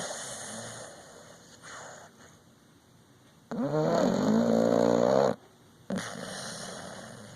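Dog snoring in sleep. Soft breathy breaths open it, then one loud snore of about two seconds comes in the middle, followed by another softer breath.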